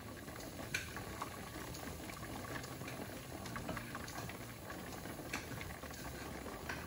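Pressure canner on a glass-top stove with its contents boiling under pressure: a faint, steady bubbling with a few scattered small ticks.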